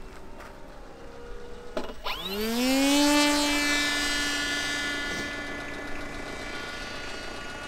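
Electric motor and 12x6 propeller of an X-UAV Talon FPV plane in flight (Sunnysky 3525 880kv brushless motor). A faint steady drone at first; about two seconds in, the pitch rises quickly as the throttle is pushed up, then holds as a steady whine that slowly fades.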